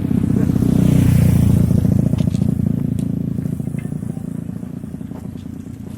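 Motorcycle engine running as it passes, loudest about a second in, then fading as it moves away.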